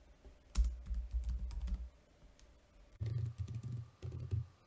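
Computer keyboard typing: two short runs of quick keystrokes with a pause of about a second between them.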